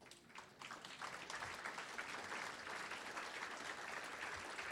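Banquet audience applauding, the clapping building over the first second and then holding steady.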